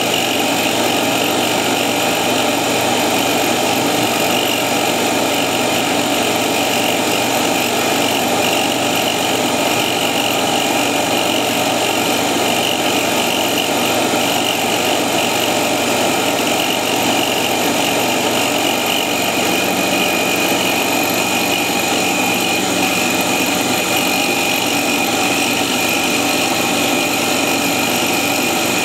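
CNC mill/drill spindle running as a solid carbide end mill cuts a shallow groove in quarter-inch aluminium plate, making a steady machining noise with a constant high whine.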